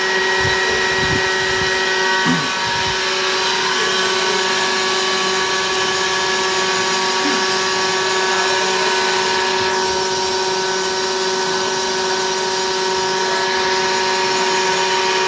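Shaft grinding machine's abrasive wheel grinding a steel camshaft for a Yanmar TE70 diesel engine, throwing sparks: a steady grinding hiss over several steady whining tones from the machine.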